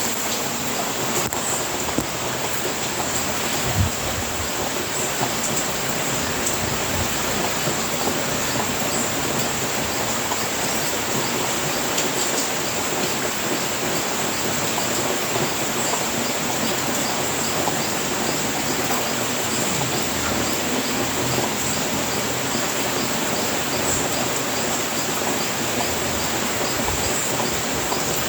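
Steady rain falling, an even hiss with no letup, with a constant high thin tone running over it.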